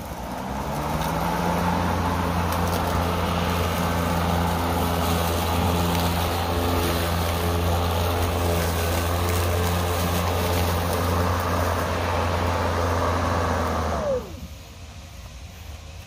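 Hart 40-volt brushless cordless push mower spinning up, then running steadily with a motor hum and the hiss of the blade cutting thick grass. Near the end it is switched off and the whine falls away as the blade spins down.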